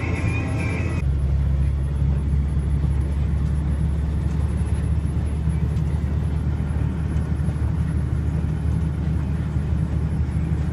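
Steady low rumble of a snow-plow truck driving and plowing, heard from inside the cab. Music from the cab audio cuts off about a second in, leaving only the rumble.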